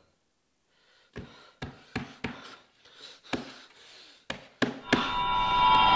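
A man gasping for breath in a string of short, sharp, irregular intakes after about a second of silence. Near the end comes a loud, steady, high-pitched sound lasting about a second.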